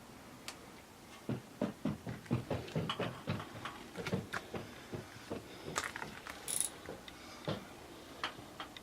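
A run of short clicks and knocks from hand tools or metal parts being worked, fairly quick at about three or four a second early on, then scattered, with a brief hiss about two-thirds of the way through.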